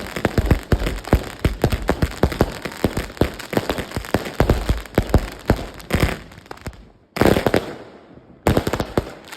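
A 200-shot firework cake (MC148V Explosive Master) firing a rapid string of bangs, several a second, with crackle between them. After a short lull near the end come two last loud bangs, each trailing off in crackle, as the cake finishes.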